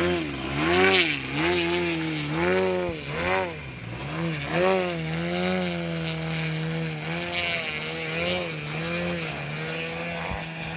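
Large RC aerobatic plane's ZDZ 180 gasoline engine with Pro-RC canister mufflers, holding the plane in a nose-up hover. The pitch rises and falls with quick throttle blips at first, runs steadier around the middle, then swings more slowly again.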